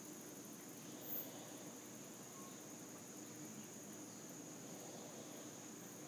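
Faint, steady high-pitched insect trill, with a brief high-pitched blip about a second in.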